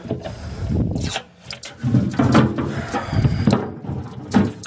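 Objects being handled: irregular rubbing and scraping with several sharp knocks, the loudest knock near the end.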